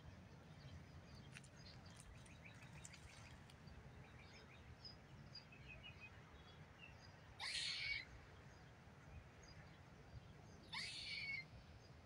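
Two short, harsh animal calls about three seconds apart, each about half a second long, over near silence with faint high chirps.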